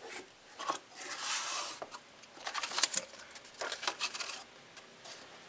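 Cardboard box being opened and its contents handled: the lid and a paper instruction sheet rustle, with a few light taps and scrapes, dying away near the end.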